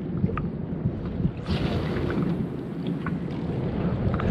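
Wind rumbling on the microphone, with a few light clicks. A steady hiss sets in about a second and a half in.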